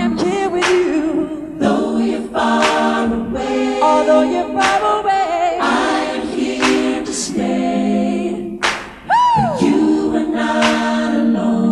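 Choir-style layered voices holding wavering chords, punctuated by sharp hits every second or two. About nine seconds in, a single high tone swoops up and then falls steeply.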